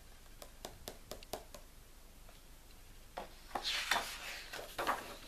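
Handling of a large hardcover picture book: a quick run of light clicks and taps, then a few louder rustles of paper as a page is moved, between about three and five seconds in.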